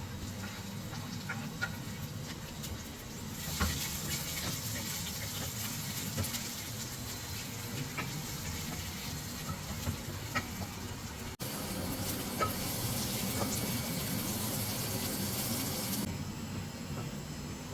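Stovetop cooking: a steady hiss from a pot or pan starts a few seconds in and stops near the end, with a brief break partway. Light clicks of a utensil come and go throughout.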